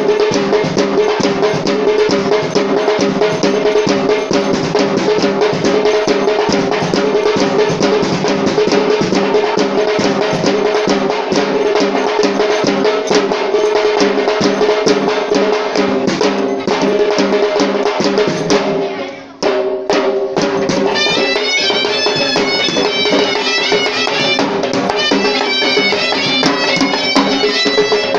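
Ensemble of Sri Lankan traditional drums played in fast, dense strokes over a steady droning pipe tone. About two-thirds through the playing briefly drops, then resumes with a high pipe melody over the drums.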